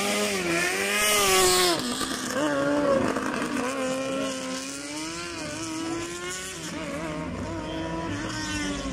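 Race car engine running hard through a slalom, its note rising and falling repeatedly as the driver accelerates and lifts between bends. Loudest in the first two seconds, then quieter and further off.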